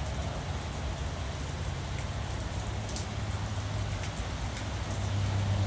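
Steady rain falling, with scattered drops ticking, over a low steady hum that grows louder near the end.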